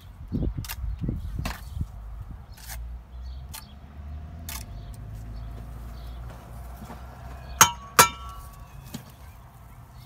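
Bricklaying work: dull knocks and scraping of bricks and mortar in the first couple of seconds, with scattered small clicks. Then two sharp, ringing metallic clinks less than half a second apart, typical of a steel trowel tapping a brick down.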